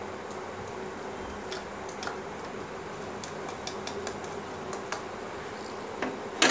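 Scattered light clicks and taps of a metal spoon against a plastic funnel while baking soda is spooned in, with a sharper knock near the end, over a faint steady hum.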